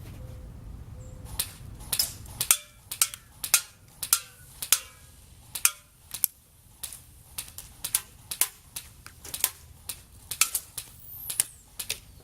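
Airsoft FN P90 replica firing single shots in an irregular string, over twenty sharp cracks at roughly two a second, some followed by a brief ringing.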